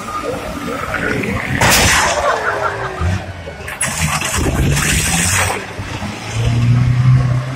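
Banger racing vans' engines running and revving around the track, the pitch rising and falling, with loud noisy bursts about two seconds in and again around four to five seconds in.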